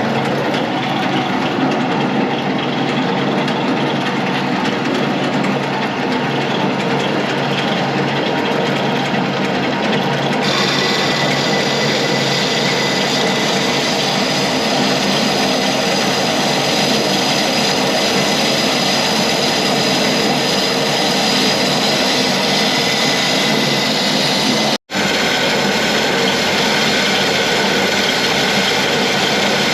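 A power tool running continuously with a steady, dense noise. It turns brighter and hissier about ten seconds in and cuts out for an instant near the end.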